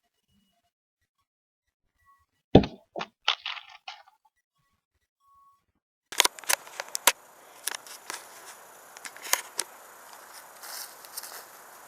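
A cheap plastic Rubik's cube hits a hard surface with one loud crack and clatters through several quicker knocks over about a second and a half. From about six seconds in there is a light background with scattered clicks and taps.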